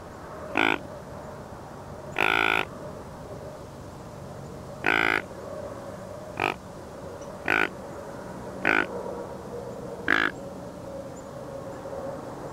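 Whitetail deer grunts: a series of seven short, deep grunts one to two seconds apart, the second held longer than the rest.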